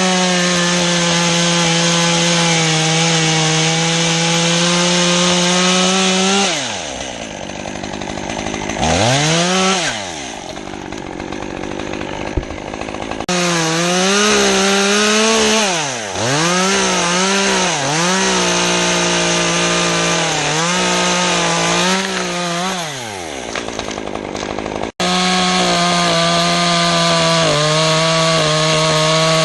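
Chainsaw cutting through wood, held at full throttle for several seconds at a time, falling back toward idle and revved up again in a series of quick rises and dips. The sound breaks off and jumps abruptly twice.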